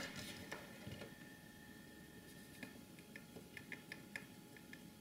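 Faint light ticks and clicks of a metal tool tip against the pins of a PLCC chip socket on a circuit card. A short burst of handling rustle comes first, then about a dozen small ticks from about halfway through.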